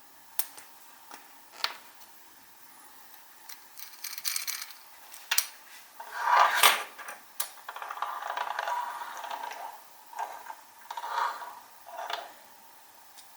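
Small hard plastic toy parts being handled on a hard surface: scattered clicks and taps, with several stretches of scraping and rustling.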